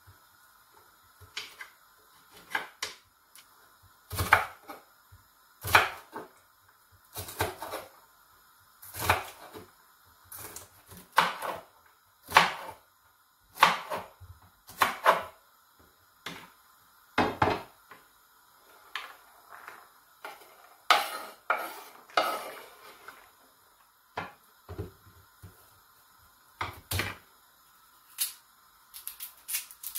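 Kitchen knife chopping green beans on a wooden chopping board: sharp, uneven knocks of the blade hitting the board, roughly one every second or so.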